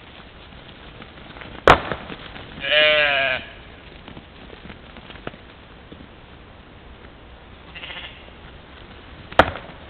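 European mouflon bleating: one loud bleat about three seconds in and a fainter, shorter one near eight seconds. Two sharp knocks stand out, one just before the first bleat and one near the end.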